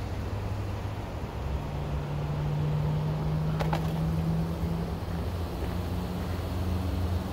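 A motor vehicle's engine running nearby: a low rumble with a steady hum that sets in about a second and a half in.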